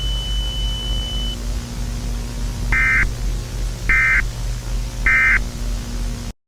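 Emergency Alert System end-of-message signal: three short bursts of SAME digital data tones, a rapid warbling screech, about a second apart. They sound over a steady low hum, and everything cuts off abruptly near the end.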